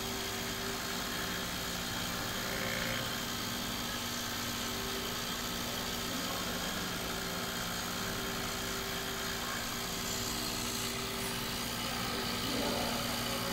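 A small desktop five-axis CNC milling machine running steadily as it rough-machines a turbine: an even machine hum with a few steady tones.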